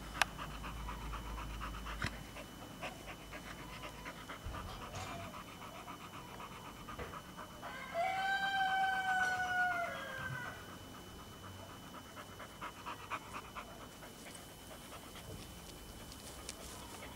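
Dog panting quickly, with a long, high whine about eight seconds in that lasts some two seconds and drops in pitch as it ends.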